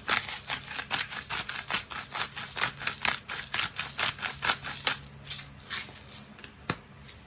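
Hand-twisted salt and pepper grinders cracking in quick clicking strokes. The clicks thin out after about five seconds, with one sharp click near the end.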